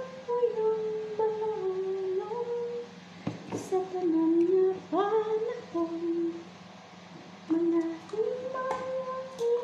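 A woman's voice humming a slow melody in held, stepping notes, over a steady low hum, with a few short clicks.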